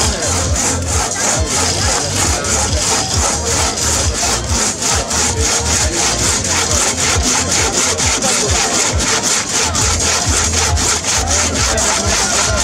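Two-man crosscut saw cutting through a log, pulled back and forth in fast, even strokes, about four a second.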